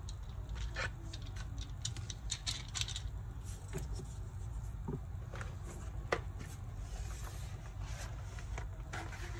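Irregular small clicks, taps and light scrapes of a laptop's plastic case and small hand tools being handled as disassembly begins, over a steady low hum.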